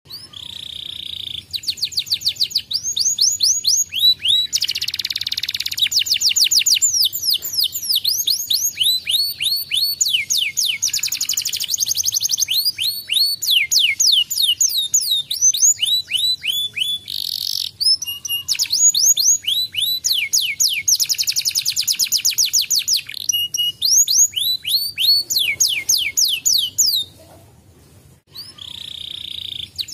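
Domestic canary singing a long, high-pitched song of fast trills, each a quick run of repeated down-sliding notes, changing phrase every second or two, with a brief pause near the end.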